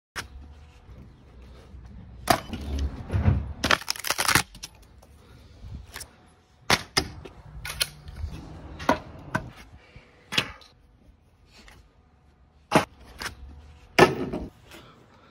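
Broken boards from an old wooden playset being thrown down, landing in a string of sharp wooden clacks and thuds, with a longer crashing clatter about four seconds in.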